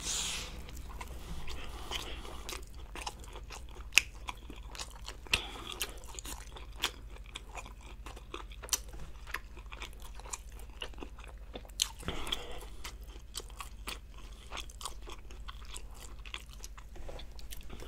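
A bite into a toasted sandwich of tuna steak and raw honeycomb, then close-miked chewing with many short, wet clicks and smacks of the mouth.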